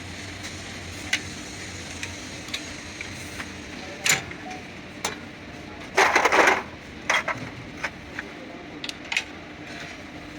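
Scattered sharp metallic clicks and knocks of tools and parts being handled during axle repair work, with a louder burst of clatter about six seconds in, over a steady low hum.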